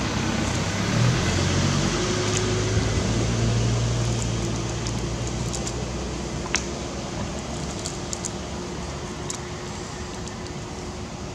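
Steady outdoor hiss with a low motor drone that fades out about six seconds in, and a few faint crackles of a plastic snack wrapper being handled by a macaque.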